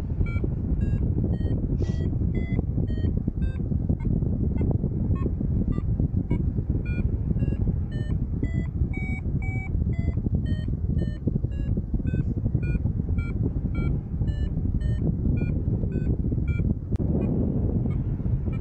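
Paragliding variometer beeping rapidly, the pitch of its short beeps going up and down, which signals climbing in a thermal. It plays over loud airflow rushing on the microphone, and the beeping stops near the end.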